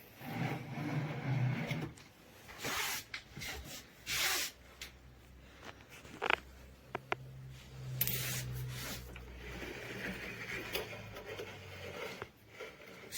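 Parts of an adjustable PC-case stand being handled and fitted together by hand: irregular rubbing and scraping with a few sharp clicks, and a low hum for several seconds from about seven seconds in.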